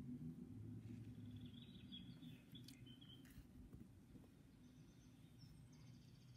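Near silence: room tone with a faint low hum and a few faint, short, high chirps.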